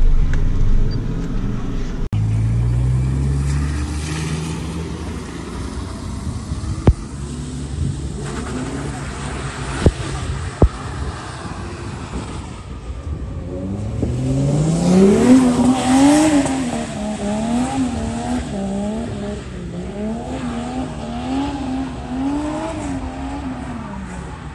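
Toyota JZX100 drift car's engine: the revs climb about halfway through, then rise and fall in quick waves as the throttle is worked through the slide, over the hiss of tyres on a wet surface. Before that a lower, steadier engine note runs, broken by a few sharp knocks.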